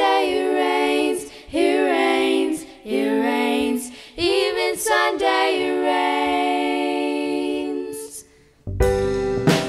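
Young female voices singing a cappella in close harmony: a few short phrases, then one long held chord. Near the end the full band comes in with drum kit, bass and keyboard.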